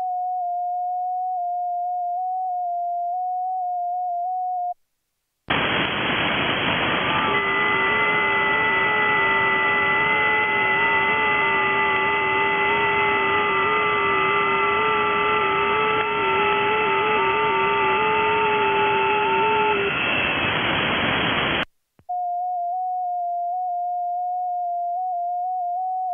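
FT8 digital-mode audio from a 30 m amateur radio station. The station's own FT8 transmit tone, a single tone stepping slightly in pitch around 700 Hz, stops about five seconds in. Then about sixteen seconds of receiver hiss follows, with several FT8 signals heard as steady stepping tones at different pitches. The transmit tone cuts back in near the end.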